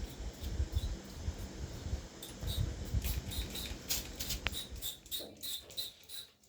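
Hand trigger water spray gun squeezed over and over, about three squirts a second, each stroke with a short squeaky click, washing the coil of an air-conditioner's indoor unit.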